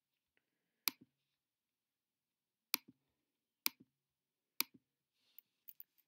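Sharp clicks of a computer mouse button, each a quick press and release. They come four times, about a second apart, and a few lighter clicks follow in quick succession near the end.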